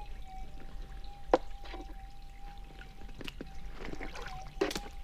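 Minelab GPZ 7000 metal detector giving its steady threshold hum, a single tone that wavers slightly, while the coil is swept over creek bedrock with no target signal. Water trickles faintly underneath, with a few knocks, the sharpest about a second and a half in.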